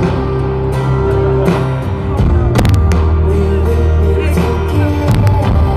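Live band music over a concert sound system: keyboards and synthesizers holding steady bass notes and chords, with sharp drum hits, the loudest about two and a half seconds in.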